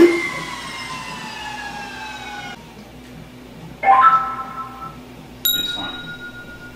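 Inmotion V12 electric unicycle's hub motor whining as the freely spinning wheel, run up in a cut-out stress test, winds down, its pitch falling steadily until it stops abruptly about two and a half seconds in. Two brief ringing tones follow, the second starting suddenly near the end.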